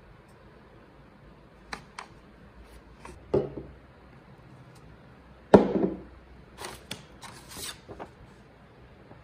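Scattered taps, knocks and short scrapes of objects being handled, with two louder thumps about three and five and a half seconds in.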